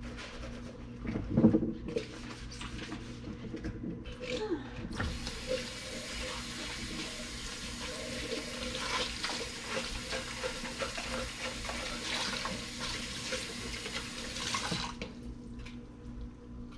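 Kitchen faucet running into the sink for about ten seconds while a cup is rinsed, starting about five seconds in and shut off sharply near the end. Before it, dishes clink in the sink, with one loud knock about a second and a half in.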